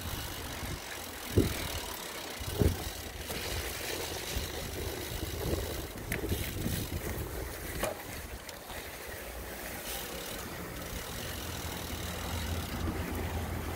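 Mountain bike being ridden, heard through a phone on a handlebar mount: a steady rumble of wind on the microphone and tyre noise, with two sharp knocks a little over a second and about two and a half seconds in, and a few lighter rattles later.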